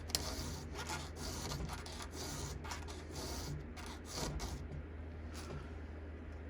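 Hand file rasping across the cutters of a chainsaw chain as it is sharpened, in even strokes about two a second. A click comes just after the start, and the strokes stop about five and a half seconds in.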